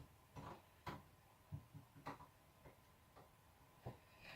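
Near silence, broken by about six faint, irregular clicks and taps of small parts being handled.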